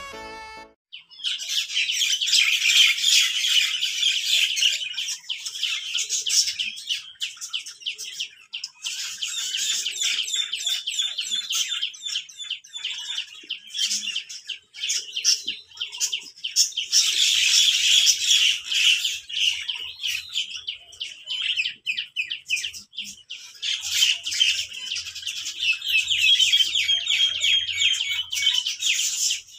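Many small birds chirping and twittering together in dense, rapid calls, with a few brief lulls.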